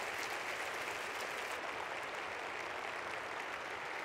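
Audience applauding steadily, many hands clapping together in a dense, even wash.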